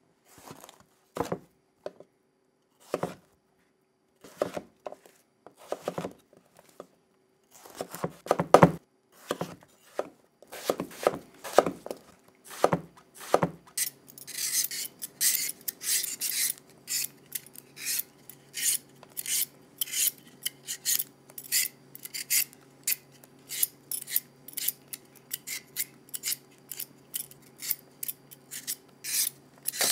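Metal vegetable peeler scraping the skin off a lotus root. Scattered, uneven strokes give way about halfway to a quick steady run of rasping strokes, about three a second.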